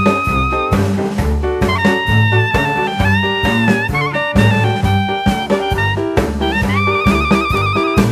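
Background music: an upbeat jazz tune with a brass or saxophone lead over a walking bass and drums, the lead holding a note with vibrato near the end.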